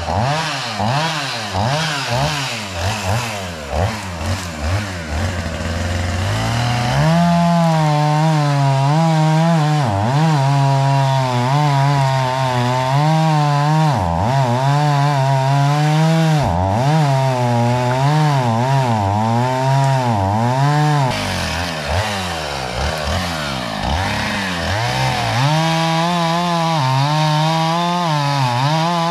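Chainsaw cutting into a tree trunk near its base to fell it. The engine revs unevenly for the first several seconds, then runs at full throttle in the cut from about a quarter of the way in, its pitch dipping briefly again and again as the chain loads up in the wood.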